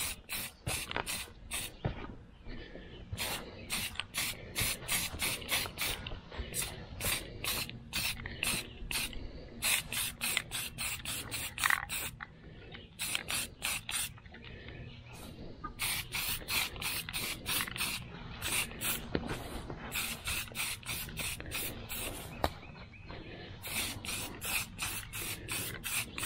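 Aerosol spray-paint can sprayed in many quick, short bursts, each a sharp hiss, in groups separated by brief pauses. The can is putting a coat of primer on a metal part.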